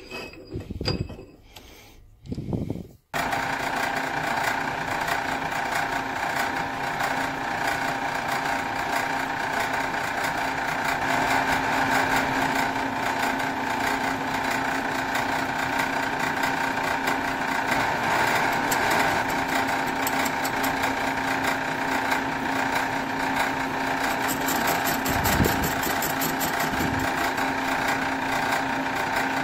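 Sheldon metal lathe running under power: a steady mechanical hum with several even tones from the motor and drive, switching on abruptly about three seconds in after a few light handling clicks.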